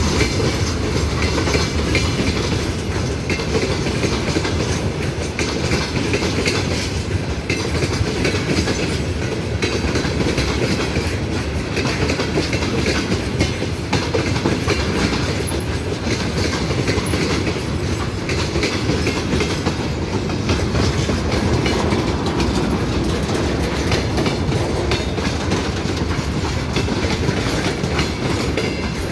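A train rolling past at speed, its wheels clattering steadily over the rail joints without letup.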